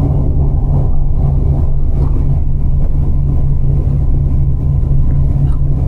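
Steady low rumble of a moving coach bus heard from inside the passenger cabin: engine drone with a constant low hum, mixed with road noise.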